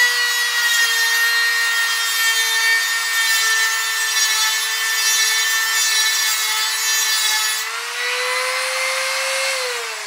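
INGCO mini die grinder (rotary tool) running with a small abrasive cut-off wheel grinding into a mild steel sheet: a steady high motor whine under a harsh grinding hiss. About three-quarters of the way through, the grinding stops as the wheel leaves the metal and the whine rises slightly, then near the end it falls as the motor winds down.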